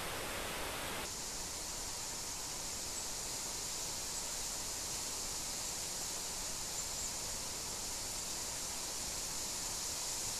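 Typhoon wind blowing through a deciduous forest, a steady rustling of leaves in the trees. About a second in the sound changes and a steady high hiss comes in.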